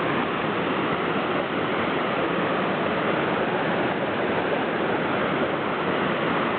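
River water rushing steadily, a constant even hiss with no break.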